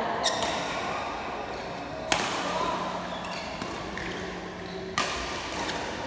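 Badminton rackets striking a shuttlecock during a doubles rally: three sharp smacks a couple of seconds apart, the middle one loudest, echoing in a large hall.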